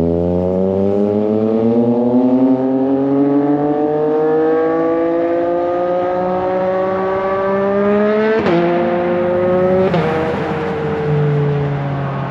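2023 Yamaha MT-09 SP's three-cylinder engine breathing through a full titanium aftermarket exhaust, pulling hard with the note rising steadily for about eight seconds. The pitch then drops sharply twice, about a second and a half apart, as it shifts up, and eases off near the end.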